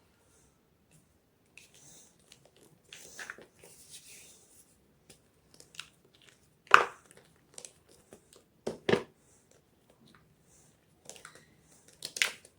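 Gym chalk being crunched: a few sharp, separate crunches, the loudest about seven seconds in, then a pair about two seconds later and another near the end, with softer crumbling and crinkling between them.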